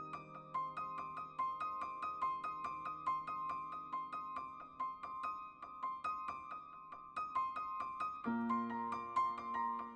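Solo piano music: a quick repeated figure of two alternating high notes, about four a second, over held lower chords, with the harmony shifting about eight seconds in.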